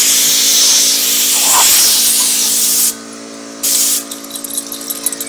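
Compressed air hissing from an air compressor hose nozzle in a steady blast that cuts off suddenly about three seconds in, then one short blast a second later. A steady hum runs underneath, and small clicks follow near the end.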